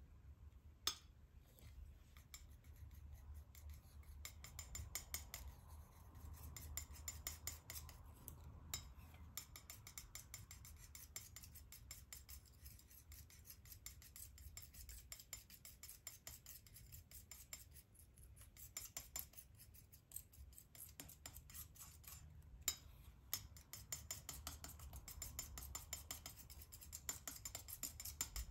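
Steel palette knife scraping, mixing and spreading thick paint on a smooth surface: faint, rapid crackling scrapes in runs of a few seconds, with an occasional sharper tap of the blade.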